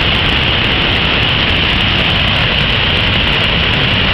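Waterfall pouring into its plunge pool at close range: a loud, steady rush of churning water.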